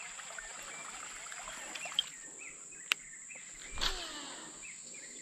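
Insects droning steadily at a single high pitch over a faint rustle. Two sharp clicks come about two and three seconds in, and a brief louder swish a little under four seconds in.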